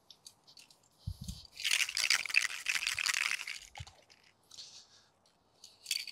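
Aerosol can of matt silver spray paint being shaken, its mixing ball rattling: a few short shakes, then about two seconds of hard shaking in the middle, and two more brief shakes near the end, with a couple of dull handling knocks.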